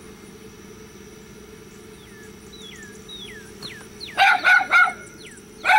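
Dogs barking: three sharp barks in quick succession about four seconds in and one more near the end. They are preceded by a series of short, high, falling whistles, over a steady low hum.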